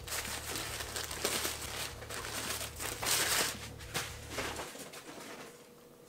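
Paper wrapper of a McDonald's breakfast burrito crinkling and rustling in the hands as it is unwrapped, in irregular bursts that are loudest about three seconds in, then dying away after about four and a half seconds.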